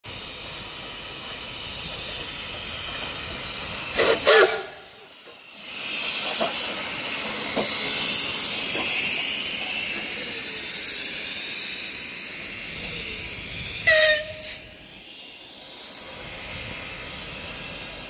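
Steam locomotive running past with a steady hiss of steam and the sound of the train rolling. Its whistle gives two short double toots, about four seconds in and again about fourteen seconds in.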